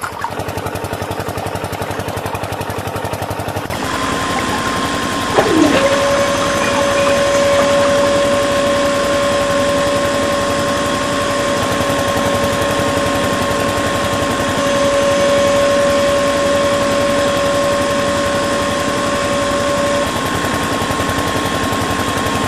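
Small DC motors of a model borewell drilling rig running with a steady whine over a hiss. A second motor spins up with a rising whine about five seconds in, holds a steady pitch, then cuts off near the end.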